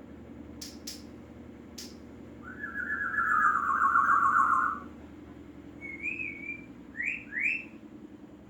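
A pet talking bird makes a loud, harsh, drawn-out burp-like sound lasting about two seconds, falling slightly in pitch. It follows with a short wavering whistle and two quick rising whistles near the end. A few sharp clicks come in the first two seconds.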